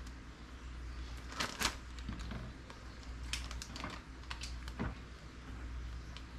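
Irregular crinkles and light clicks from a plastic zip-top bag of crushed corn flakes being handled as egg-dipped catfish fillets are put into it.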